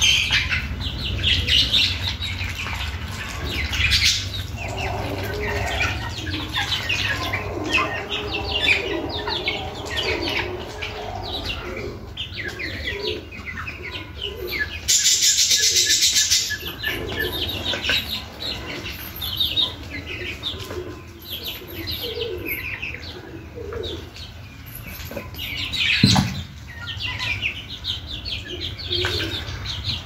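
Young ducks and chickens chirping and peeping continuously as they feed together from a bowl, with a brief loud burst of noise about halfway through and a sharp knock near the end.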